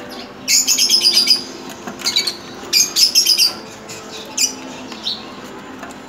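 A parrot calling loudly in two runs of rapid repeated shrill notes, one about half a second in and one just under three seconds in, with a few short single calls between and after.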